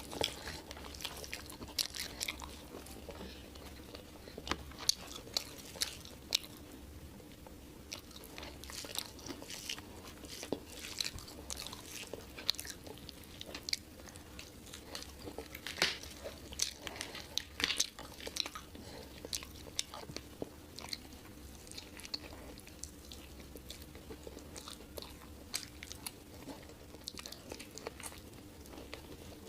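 Close-miked chewing of curried meat and rice, full of irregular wet smacks and small crunches. A faint steady hum sits underneath.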